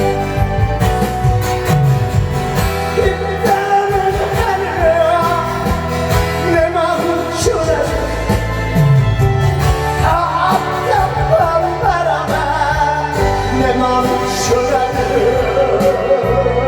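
A singer performing a song live over instrumental backing music, the voice wavering and sliding through the melody above a steady bass.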